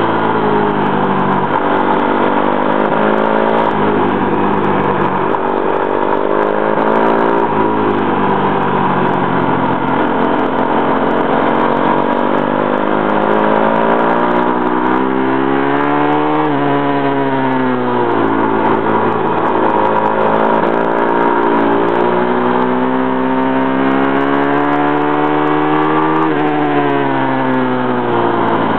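Pit bike engine recorded on board, revving hard on track: its pitch climbs as the bike accelerates and falls as it slows for corners, over and over, with a couple of sudden drops about halfway through and near the end.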